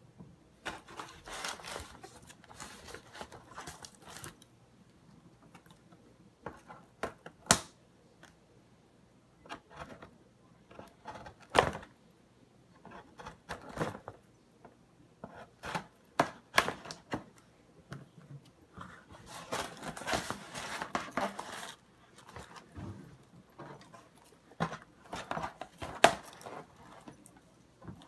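Toy packaging being opened by hand: cardboard and plastic rustling, crinkling and tearing, with a few sharp snaps spread through it.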